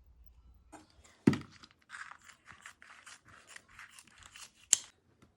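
Cutting ingredients for chicken and green onion skewers in a small room. A loud knock comes about a second in, then a run of about ten short crisp cutting strokes, two to three a second, and a sharp click near the end.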